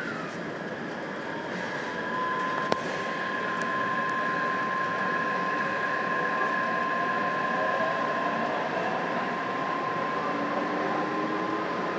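Taipei Metro C381 train pulling out and gathering speed, heard from inside: the traction motors whine in a steady high tone, while lower tones slowly rise in pitch over the rumble of the wheels. A single sharp click sounds about three seconds in.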